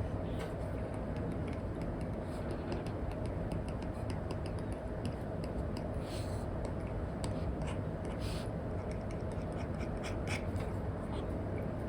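Apple Pencil tip scratching and tapping in short strokes on a paper-like matte screen protector over an iPad, over a steady bed of background noise.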